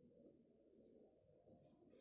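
Near silence with faint eating sounds: a few soft mouth clicks over low room hum.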